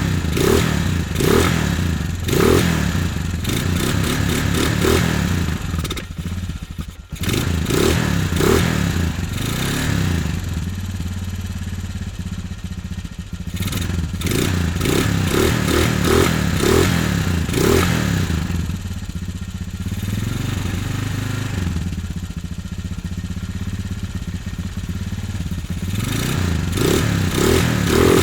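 Quad bike (ATV) engine running at idle just after starting, swelling in short pulses several times and dipping briefly about seven seconds in.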